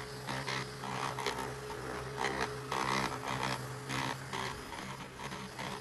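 Supor handheld dust-mite vacuum running with a steady motor hum, its head pushed back and forth over bedding, which adds irregular scraping rushes of noise.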